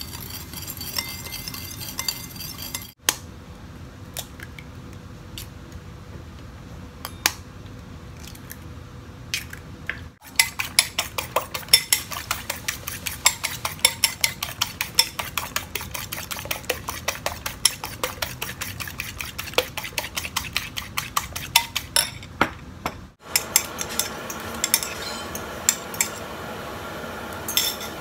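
A spoon stirring and clinking in a ceramic bowl. Then a utensil beating eggs against the side of a ceramic bowl in quick, steady strokes, several a second. Near the end, the beaten egg sizzles in a hot frying pan.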